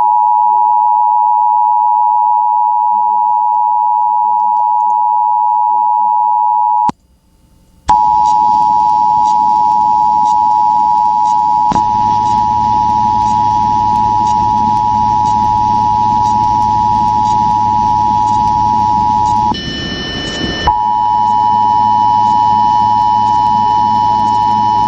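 Emergency Alert System two-tone attention signal, a steady, loud electronic tone. It cuts out for about a second some seven seconds in, then resumes with a low hum and hiss beneath it. About twenty seconds in it briefly gives way to a higher tone before returning.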